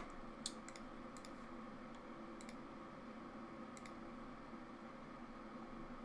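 Computer mouse clicking a handful of times, spread out over several seconds, the loudest click right at the start, over a faint steady hum.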